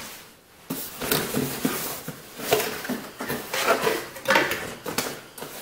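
Boxed items being handled and shifted inside a cardboard shipping box: irregular knocks, scrapes and rustling of cardboard, with a sharp knock about a second in.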